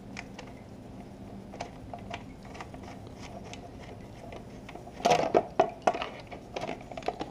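Hands handling the plastic coolant overflow reservoir of a 2008 Yamaha R6 as it is fitted back into place, giving light scattered clicks and rustles. About five seconds in comes a short run of louder plastic knocks and rattles.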